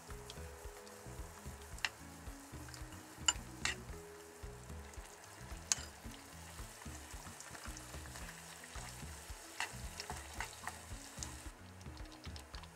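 Sauce simmering in an aluminium pan while it is stirred with wooden chopsticks, as potato-starch slurry goes in to thicken it. A steady bubbling hiss runs throughout, with a few sharp clicks of the chopsticks against the pan.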